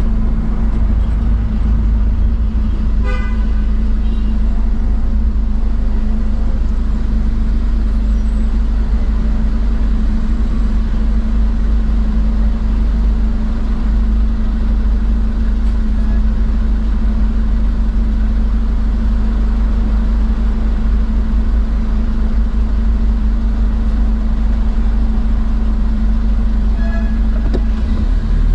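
Car engine running with a steady hum and low rumble, heard from inside the car. A car horn toots briefly about three seconds in.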